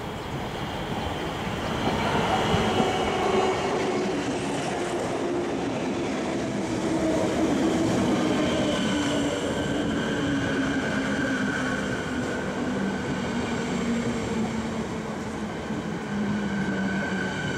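Siemens electric multiple unit pulling into the platform and braking, its motor whine falling steadily in pitch as it slows, over the rumble of wheels on the rails. The train gets louder about two seconds in as it comes alongside.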